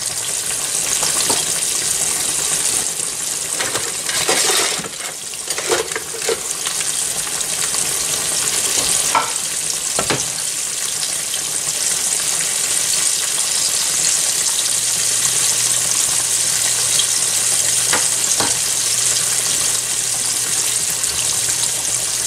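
Flour-dredged grey snapper steaks frying in about an inch of hot oil, a steady dense sizzle. A few light clicks of metal tongs in the pan come in the first half and once more near 18 seconds.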